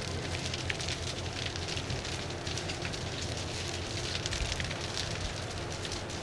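Large St. Martin's bonfire burning: a steady rush of flames with frequent sharp crackles and pops.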